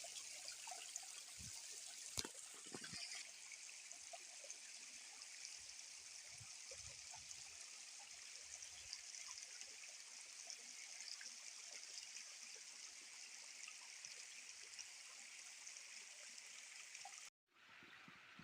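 Small multi-step waterfall running, a faint steady rushing hiss of falling water, with a few sharp knocks about two seconds in. Near the end the sound cuts out for a moment and comes back quieter.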